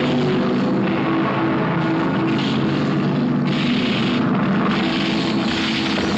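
Film soundtrack of a huge bell being hauled down a rocky slope on ropes and poles: a steady, heavy droning rumble with sustained low tones, and two stretches of rushing noise in the second half.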